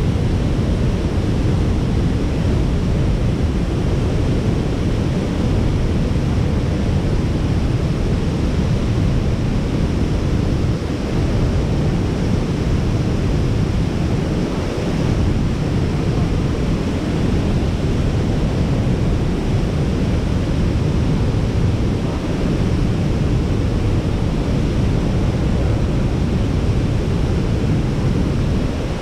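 Steady rushing of water pouring over a dam spillway close by, with wind buffeting the microphone.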